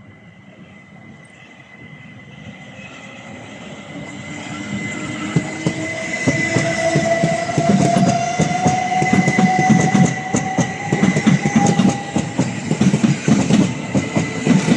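Electric train pulling away and gathering speed past the platform, growing steadily louder, with a slowly rising motor whine and quickening clickety-clack of wheels over rail joints.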